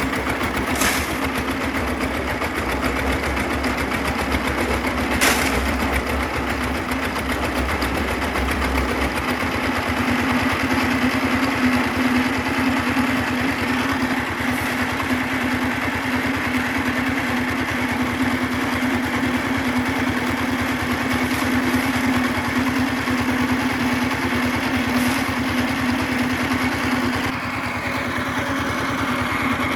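A small engine running steadily at an even pitch, with a couple of sharp knocks in the first few seconds.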